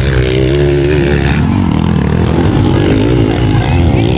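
Motocross dirt bike engines revving hard, the pitch rising and falling with the throttle as a bike passes close, with other bikes running on the track behind.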